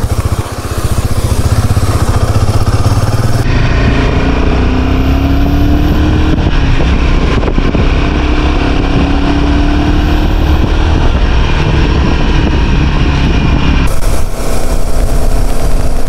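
Royal Enfield Himalayan 450's single-cylinder engine running loud and steady while riding, its pitch rising twice as it accelerates through the gears.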